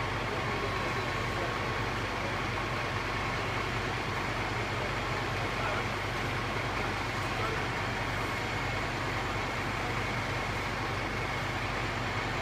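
A fire engine's engine running steadily at the scene: a constant low hum under an even rush of noise, with a faint steady whine.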